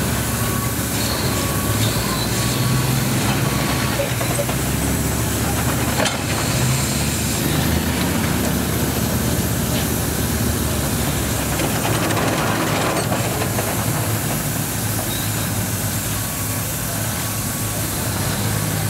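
Marion Osgood steam shovel working, its steam engine running and its gearing and chains moving the dipper: steady mechanical noise with one sharp knock about six seconds in.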